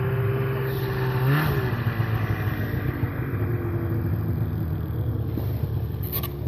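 Snowmobile engine running with a steady drone, briefly revved about a second and a half in, then settling back to a lower, even idle.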